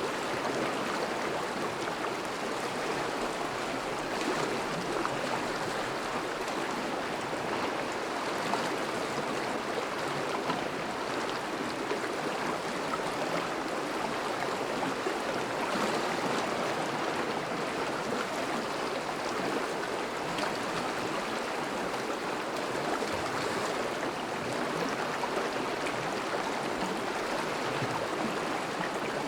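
Thawing river running steadily over and around breaking ice: an even rush of flowing water.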